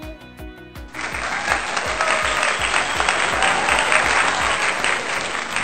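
Applause sound effect starting abruptly about a second in, over background music with a steady beat.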